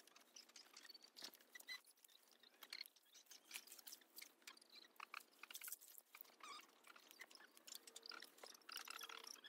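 Faint, irregular crackling and rustling of leafy wild vines and dry stems handled and picked over by hand in a plastic basin.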